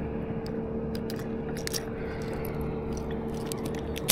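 Fishing pliers working a deeply set treble hook out of a bass's mouth: faint crunching and small scattered clicks of metal on hook and lure, with one sharp click near the end.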